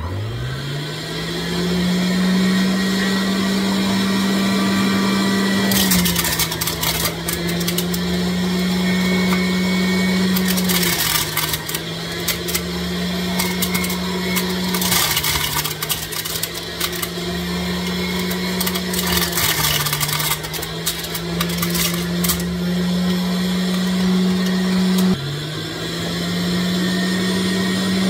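Electric centrifugal juicer starting up and spinning up to a steady whine. Its pitch dips under load about five times as pomegranate is pressed down the feed chute, with a crackling of the fruit being shredded against the spinning basket.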